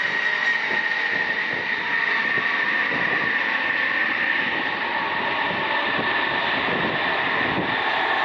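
Jet aircraft engines running: a steady high whine over a rushing noise, the whine drifting slightly lower.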